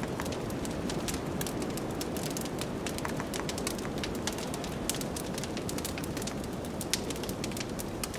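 Fireplace wood fire crackling with many quick, irregular pops, over the steady rush of blizzard wind.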